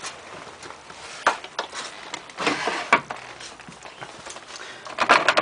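Clicks and knocks from a front-loading washing machine being handled, with a quick run of clicks near the end.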